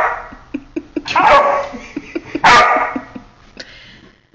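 Old English Sheepdog puppy barking three times, about a second apart, with a few light clicks in between.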